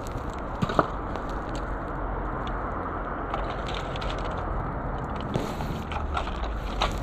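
Steady rushing outdoor noise with scattered small clicks and crunches, a couple of sharper ones about a second in and more near the end.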